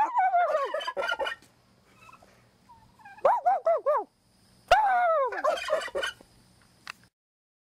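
Three bursts of rapid, warbling calls, each falling in pitch.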